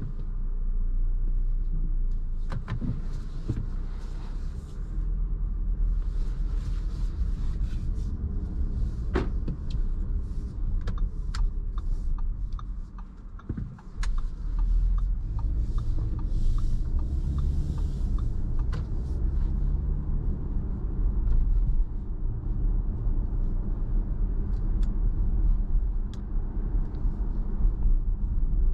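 Cabin sound of a 2021 Audi Q5 45 TFSI with its 2.0-litre turbocharged four-cylinder under way: a steady low engine and road rumble, with scattered light clicks and a short run of ticks about halfway through.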